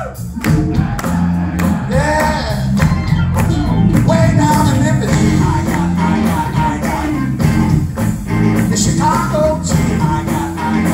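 Live blues-rock band playing: electric guitar lead with bent notes over drums, bass guitar and keyboard.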